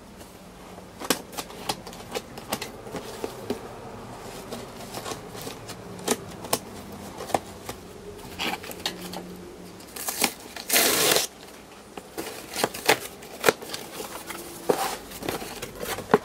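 A cardboard shipping box being opened by hand: scattered clicks and rustles of cardboard and packing tape, with one loud ripping noise lasting about a second, about ten seconds in. The flaps are then folded open. A faint steady buzz runs underneath through the first half.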